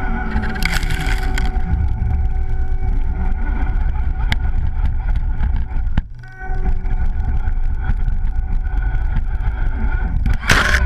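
Electric motor and gear drivetrain of an RC crawler truck whining steadily as it climbs through snow, over a low rumble, cutting out briefly about six seconds in. Short noisy bursts about a second in and near the end.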